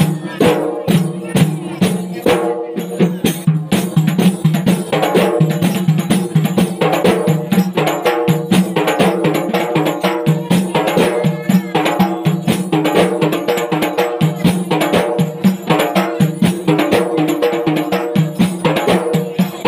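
An ensemble of large Acehnese rapa'i frame drums, beaten by hand in a fast, dense, interlocking rhythm.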